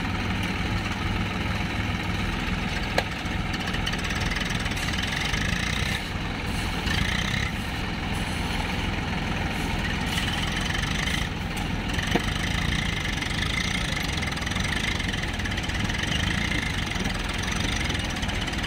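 Diesel engines of Swaraj farm tractors running steadily, with no revving.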